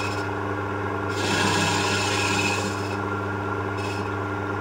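Wood lathe motor humming steadily while a hand-held turning cutter shaves the inside of a spinning wooden cup. The hiss of the cut swells about a second in and lasts about two seconds, with a brief touch again near the end.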